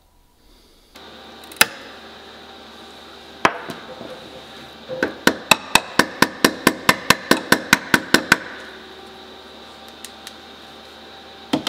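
Hammer tapping the edge of a small sheet-steel repair panel clamped between locking pliers, shaping it by hand. There are two single strikes, then a quick even run of about five taps a second for some three seconds, and one last strike near the end.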